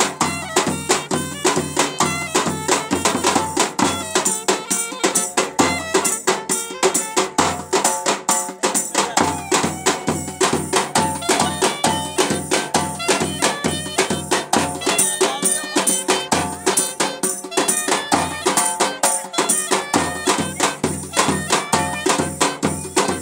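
Clarinet playing a fast, stepping folk melody over a nagara drum and a large davul bass drum beaten with a stick, keeping a steady, dense dance rhythm.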